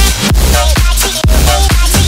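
Loud electronic dance music with heavy bass and a steady drum beat.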